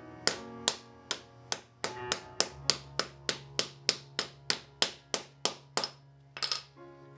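Hammer tapping a bushing down into a length of PVC conduit: about nineteen sharp knocks, roughly three a second, with a pause near the end. Steady background music runs underneath.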